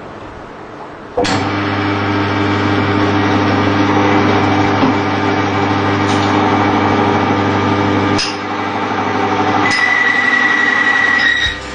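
Wear-and-friction oil test rig: its electric motor starts suddenly about a second in and runs steadily, the spinning test shaft grinding against the loaded test block. Two sharp clanks come about eight and ten seconds in, and after the second a high steady squeal of metal rubbing under load rides over the running until near the end.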